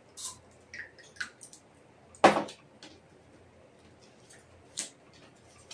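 Small wet mouth clicks and soft ticks as something is put in the mouth, then faint handling of playing cards on a table, with one sharp, louder knock about two seconds in and a lighter tick near the end.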